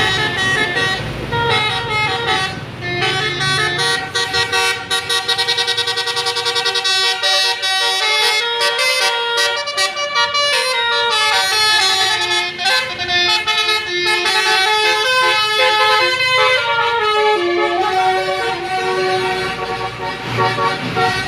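Basuri 'telolet' multi-tone musical horns on Indonesian coaches playing stepping, tune-like note sequences, with a fast trilling passage a few seconds in. A low bus engine rumble runs underneath.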